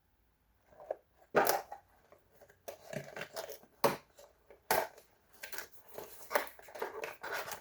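Packaging being torn and crushed open by hand: a string of sharp cracks and crinkling rustles that starts about a second in.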